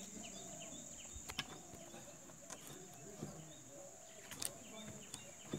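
Outdoor ambience: a steady high-pitched insect drone, with short falling chirps repeating a few times a second. A few sharp clicks come through, the loudest about four and a half seconds in.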